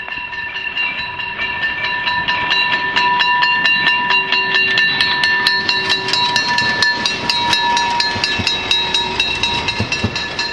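Saxon IV K narrow-gauge steam locomotive passing close under steam: rapid, regular exhaust chuffs, loudest a few seconds in as the engine goes by, over a steady high-pitched ringing tone, then the coaches rolling past.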